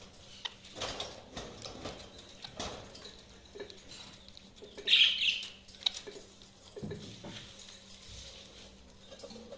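Pet budgies moving about, with scattered rustling, flutters and clicks, and a loud, short squawk about five seconds in.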